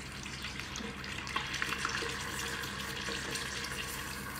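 Hot oil sizzling and bubbling steadily around large grasshoppers being deep-fried, with a light crackle throughout; they are not yet cooked through.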